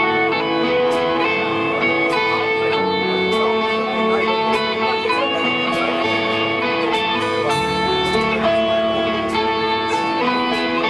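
Live band playing a song: electric guitars over bass and a drum kit, with cymbal strikes recurring steadily through the passage.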